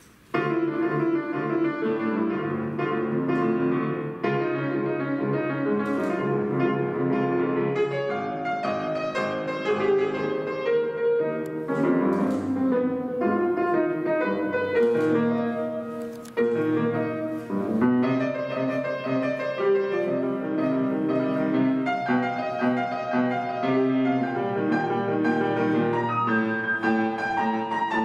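Estonia grand piano played solo, a classical piece starting about half a second in, with many notes in quick succession.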